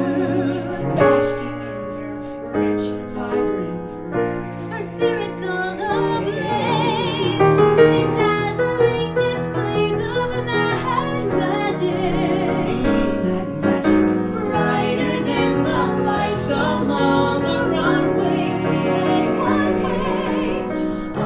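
A woman singing a musical-theatre song with vibrato, accompanied by piano.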